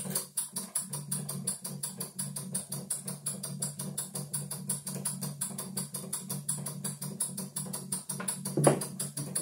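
PM Research #3 vertical model steam engine running fast and driving a belted scroll saw: a quick, even beat of mechanical clatter over a steady hum. A single thump near the end.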